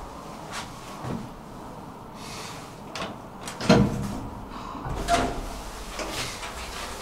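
Series of clunks and knocks from a Hissmontering AB elevator car's doors and mechanism as a floor button is pressed and the lift gets ready to move, the loudest about three and a half seconds in.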